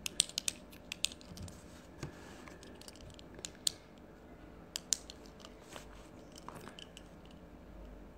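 Irregular sharp clicks and taps close to the microphone, several in quick succession at the start and a few more in the middle: fingertips tapping and handling the phone that is recording.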